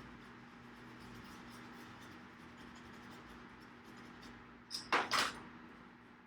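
Faint steady hum, then about five seconds in a brief scrubbing rustle of two or three quick strokes while the soldered charging port on the circuit board is being cleaned with alcohol.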